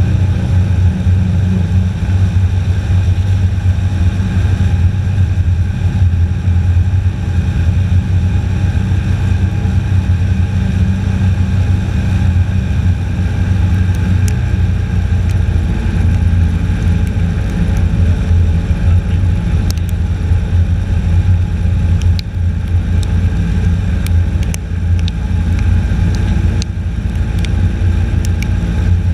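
Airboat engine and propeller running steadily while the boat is under way, with scattered sharp ticks in the second half.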